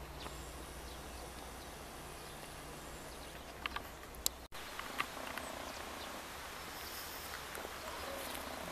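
Quiet countryside ambience: faint birdsong and insects over a low background hiss, with a few light clicks near the middle. A low hum underneath stops abruptly about halfway through.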